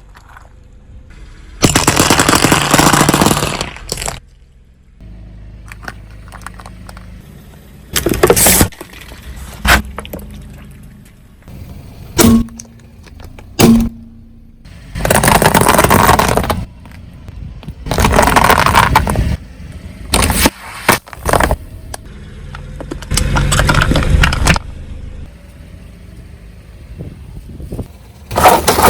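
A car's tyres rolling over and crushing a series of objects: about six loud crunching, breaking bursts of one to two seconds each, with a low steady vehicle rumble between them.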